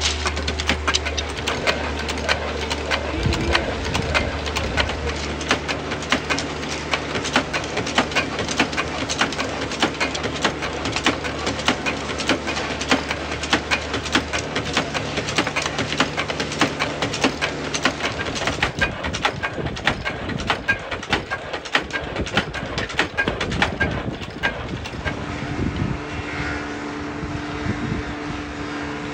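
Electric motor of a ruler-making machine running with a steady hum, under a continuous rapid clatter of thin wooden ruler strips knocking together as they are fed, handled and stacked.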